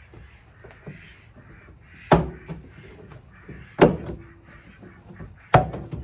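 Rear interior trim panel of a Subaru Sambar Dias van being pried off with a small pry bar: three sharp pops about every second and a half as the retaining clips let go, each with a short ringing from the body, and quieter scraping and creaking of the panel between them.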